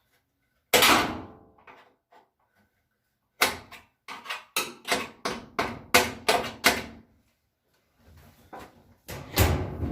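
Sheet-metal top panel of a top-load washer being pushed and popped loose from its clips: a loud bang about a second in, a quick run of about nine knocks and rattles in the middle, and another loud bang with a ringing tail near the end.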